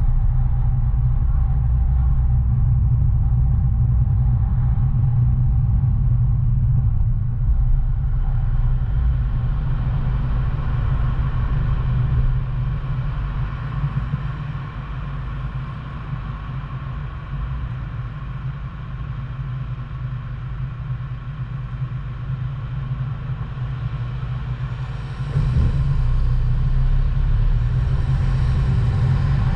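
A car driving on city streets, heard as a steady low rumble of engine and tyres. It grows a little quieter for about ten seconds in the middle, then picks up again near the end.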